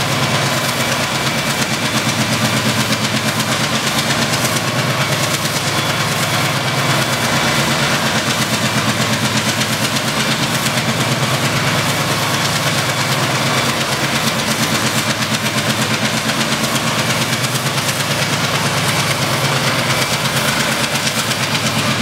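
MLW MX636 diesel-electric locomotive's V16 ALCO 251 engine running steadily while the locomotive stands, with a fast, even exhaust beat.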